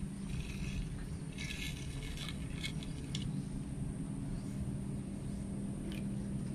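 Short, faint scrapes and rustles on gravel as a cat tussles with a snake pinned in metal snake tongs. They come in a few bursts over the first three seconds, with a faint tick near the end, over a steady low hum.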